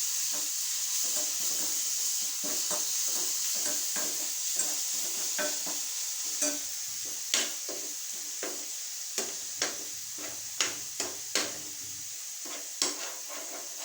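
Ground rasam paste sizzling in hot oil in a nonstick pan as it is stirred with a spatula. A steady frying hiss runs throughout, with sharp taps and scrapes of the spatula against the pan that come more often in the second half.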